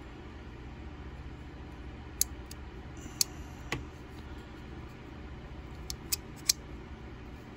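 A handful of short, sharp clicks from a Buck Spitfire folding knife being handled during reassembly, its parts ticking together at the pivot, several coming close together near the end, over a low steady hum.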